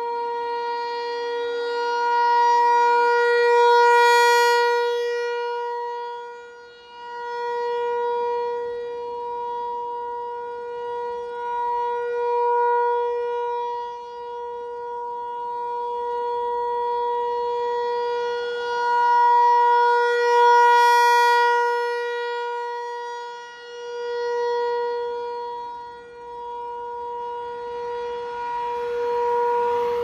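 ASC T-128 rotating outdoor warning siren sounding its steady alert signal, held at one unchanging pitch. The sound swells and fades as the horn turns toward and away, loudest about four seconds in and again about twenty seconds in.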